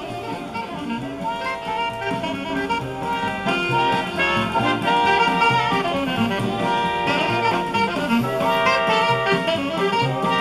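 Recorded music playing steadily through a small full-range loudspeaker driven by a homemade push-pull amplifier built on 1930s type-19 vacuum tubes, the amplifier working cleanly on its first test.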